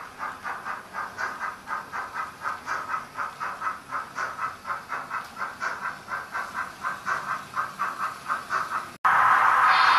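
Model railway freight wagons rolling over rail joints in a steady clickety-clack of about four beats a second. About nine seconds in, this cuts off abruptly and a loud steady hiss takes over.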